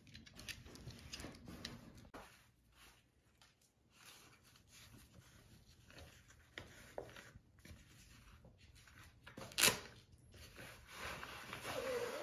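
Faint rustling and soft knocks of a folding wagon's Uline fabric bag being handled and unpacked, with one sharp click about three-quarters of the way in and louder rustling near the end.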